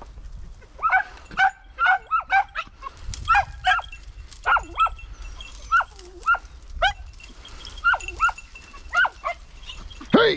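Podenco hounds yelping over and over in short, high cries that drop in pitch, about two a second, with a loud cry near the end: hounds giving tongue as they work a rabbit in the scrub.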